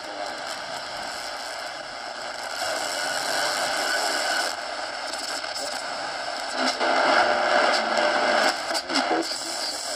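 Shortwave static and hiss from an AudioCrazy AC-Q1AR portable radio's loudspeaker as the tuning knob is turned across the band between stations. The noise shifts in tone as the dial moves and grows louder about two-thirds of the way through.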